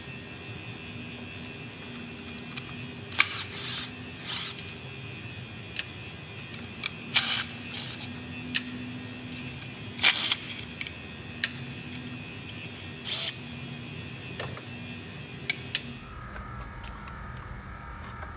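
Irregular sharp clicks and clacks, singly and in short clusters, of hands and tools working the engine computer's plastic wiring connectors and mounting, over soft background music.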